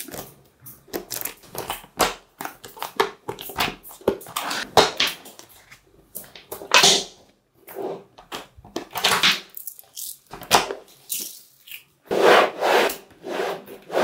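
Small magnetic balls clicking and rattling against each other as the structure is pulled apart and pressed down, in irregular bursts of sharp clicks. Near the end comes a longer, denser run of rattling clicks.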